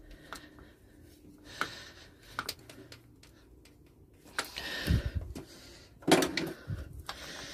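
Scattered light clicks, taps and a couple of short scrapes from small metal engine parts being handled while the gudgeon pin is pushed out of a two-stroke piston.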